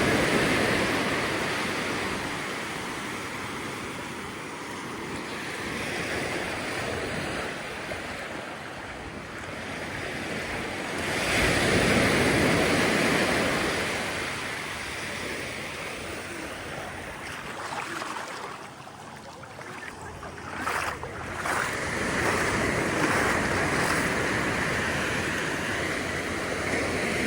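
Ocean surf breaking and washing up a sandy beach, rising and falling in slow surges, loudest about twelve seconds in and again near the end. Wind buffets the microphone.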